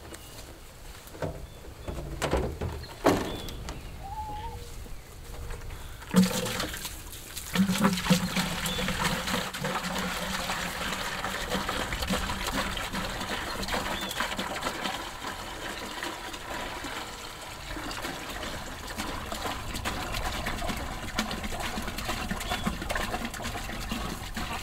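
Water poured from a plastic jug into a plastic bucket chicken waterer, splashing steadily into the bucket from about six seconds in, as the waterer is refilled. A few knocks of handling come before the pour starts.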